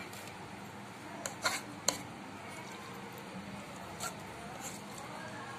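Steel spoon stirring a wet milk mixture in a metal pressure cooker, clinking against the pot three times about a second and a half in and once more about four seconds in.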